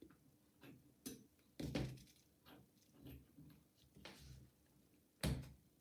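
Faint, scattered clicks and taps of small metal lock parts as the picked core of a 5-pin Euro cylinder is drawn out with a follower and its pins come loose. There are about six separate clicks, and the loudest comes near the end.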